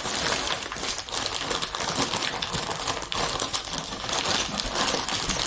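A small bag of earrings being rummaged through by hand: steady crinkling of the bag with many small clicks of jewelry pieces against each other.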